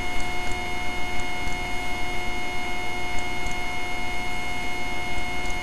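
Steady hiss with several constant high electronic whine tones and faint scattered ticks: the background noise of a webcam's built-in microphone.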